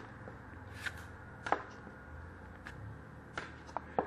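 Trading cards being flipped through and set down on a glass tabletop: about half a dozen short, sharp flicks and taps, spaced unevenly.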